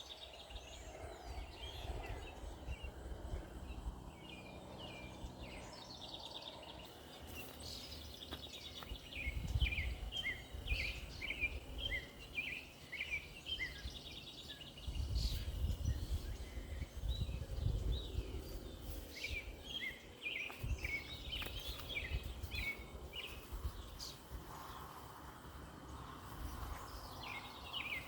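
Small birds chirping in quick, repeated short notes over a faint steady high-pitched drone and a low rumble that swells now and then.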